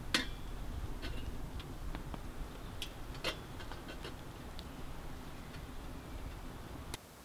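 Wood fire crackling in a small camp wood stove, with a few small knocks as the stove is tended: scattered sharp clicks, the loudest just after the start and about three seconds in, over a low steady rumble that drops away just before the end.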